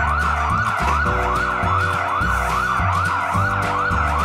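Fast siren sound effect, each whoop rising and falling about three times a second, over background music with a steady bass beat.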